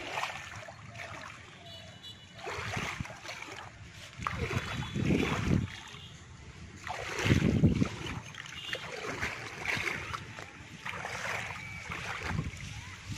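Shallow canal water splashing and sloshing in irregular bursts as a man wading knee-deep works his hands and a fishing net through it.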